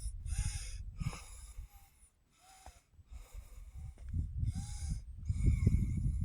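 A hiker breathing hard close to the microphone, about one hissing breath a second with a short pause partway through, over a low rumble that grows louder near the end.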